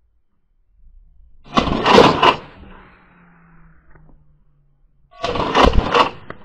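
Two short bursts of fire from a suppressed VULKAN-M bullpup AK rifle, each under a second long, with the rifle's bolt clacking audibly.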